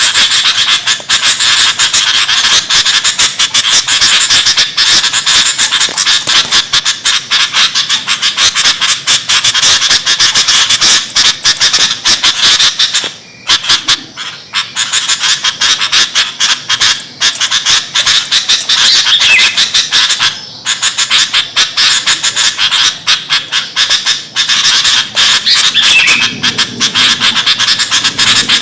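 Sooty-headed bulbuls (kutilang) chattering noisily in a dense, continuous run of rapid calls, broken only by brief pauses about 13 and 20 seconds in.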